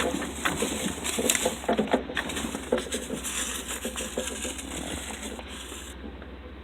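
Off-road vehicle's engine running at low revs under scattered knocks and crackles, growing fainter near the end.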